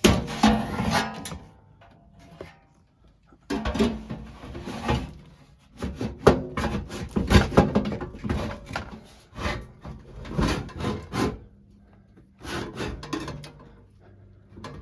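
Sheet-metal blower housing being slid and jostled into an air handler cabinet's slide rails: irregular bursts of knocking, scraping and rubbing with short pauses between.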